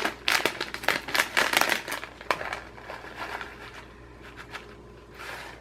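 Plastic snack bag crinkling and crackling as it is opened. The sound is dense for the first two seconds or so, then thins to a few scattered rustles.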